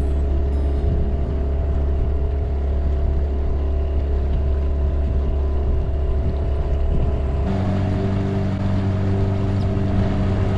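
Outboard motor running steadily at trolling speed. About seven and a half seconds in, its sound changes abruptly to a higher note.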